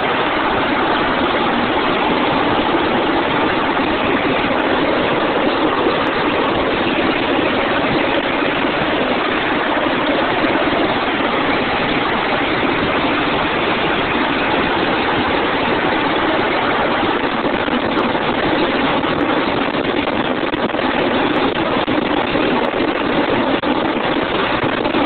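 UH-60 Black Hawk helicopter's twin turbine engines and main rotor running at close range as it takes off: a loud, steady din.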